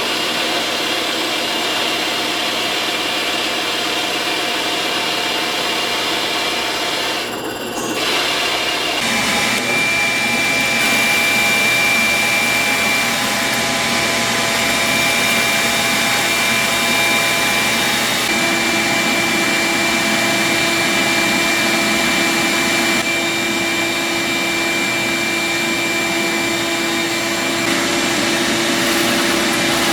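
Drill press running with a hole saw cutting into wood: steady motor hum over a continuous cutting and rubbing noise, with a short dip about a quarter of the way through.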